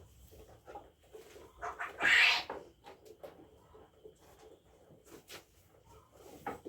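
A Nigerian Dwarf goat bleats once, loudly, about two seconds in, with small scattered knocks around it.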